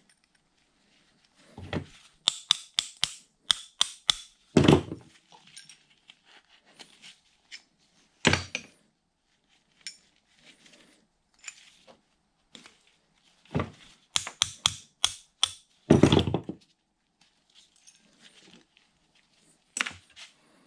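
A hammer tapping a pin punch against a small steel part of a Bridgeport variable speed milling head, knocking it apart: irregular groups of quick light metal taps with a few heavier blows between them.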